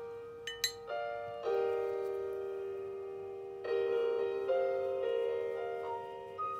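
Slow, gentle solo piano background music: held notes that fade away, with new notes and chords entering every second or two. Two short high ticks sound about half a second in.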